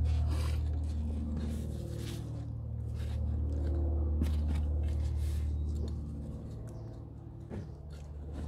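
Hands rummaging through potting soil in a potato grow bag, with scattered scrapes and rustles as the last tubers are searched for, over a steady low hum.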